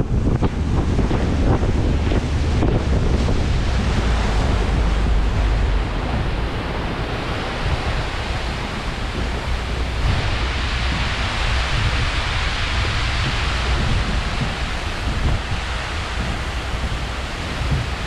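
Wind buffeting the microphone and water rushing as a RIB boat runs fast across open water. The hiss is steady and loud, growing brighter about ten seconds in.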